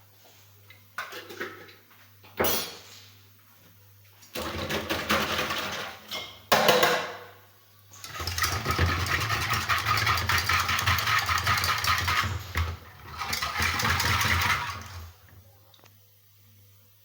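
Small electric kitchen appliance motor, such as a hand mixer or blender, running in bursts: a short run of about two seconds, a click, then a longer run of about seven seconds with a brief dip in the middle.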